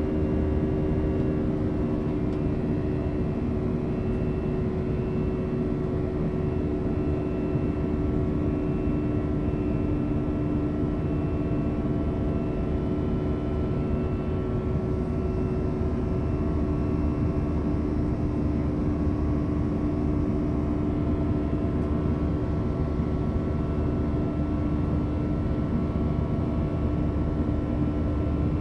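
Airbus A320 jet engines heard inside the cabin during the climb after takeoff: a steady, even drone with a constant hum of held tones.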